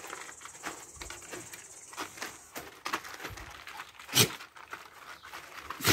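A dog moving about on a plastic sheet: scattered light pattering and rustling, with a sharp knock about four seconds in and another at the very end.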